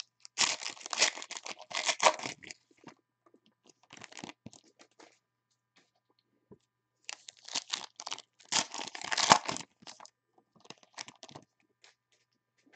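Foil wrappers of 2020 Legacy football card packs being torn open and crinkled. There are two main bouts of crackling, one just after the start and one from about seven to ten seconds in, with lighter rustling between.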